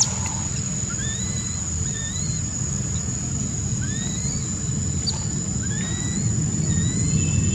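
Baby macaque giving faint, short rising whimpers roughly once a second, over a steady high insect drone and a low steady rumble.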